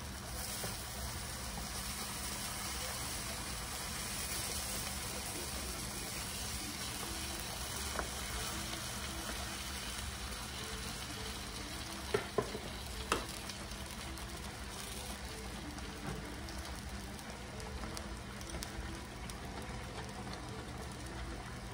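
Fish in coconut-milk sauce simmering in a skillet: a steady bubbling hiss. A few light knocks of a wooden spoon against the pan come around the middle.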